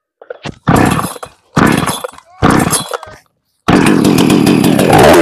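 New West 628 two-stroke petrol chainsaw being pull-started: three short bursts as the engine fires briefly on successive pulls, then it catches about three and a half seconds in and keeps running.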